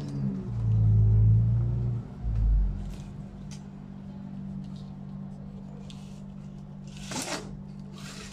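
Light clicks and a short scratch from a marker and a thin copper wire rod being handled on a tabletop, over a steady low hum. A low rumble comes in the first couple of seconds.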